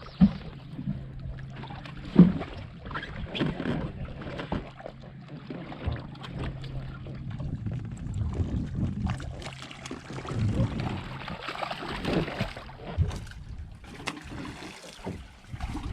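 A steady low hum from the boat, which stops near the end, under irregular knocks, thumps and water splashing on board.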